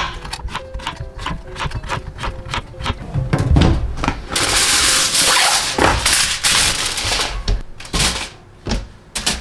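A chef's knife chopping a zucchini into rounds on a cutting board, about four quick cuts a second. About four seconds in, aluminium foil crinkles as it is pressed into an air-fryer mesh basket, followed by a few light knocks.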